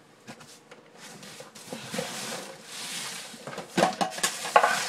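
Handling noises while searching for a dropped small toy accessory: rustling and shuffling, with a couple of sharp knocks near the end.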